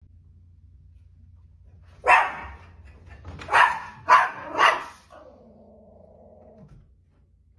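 Small fluffy dog barking at the front door: four sharp, loud barks in quick succession, followed by a drawn-out lower tone lasting about a second and a half.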